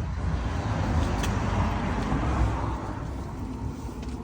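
Rushing noise of a passing motor vehicle with a low rumble, swelling and then fading away.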